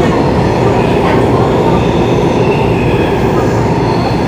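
Interior running noise of a Singapore MRT train in motion: a loud, steady rumble of wheels on rail and carriage noise, with faint higher tones over it.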